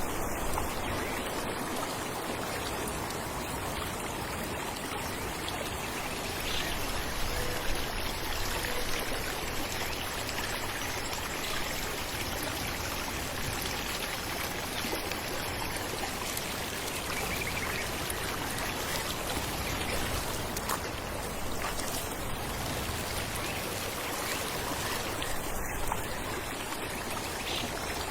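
Falling water: a steady, even rush of a small waterfall or stream, with splashing and trickling.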